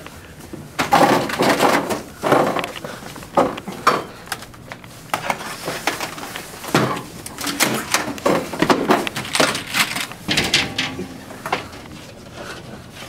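Irregular bursts of rustling and knocking: a rain jacket's fabric swishing as a person flails his arms about, with bumps and knocks between.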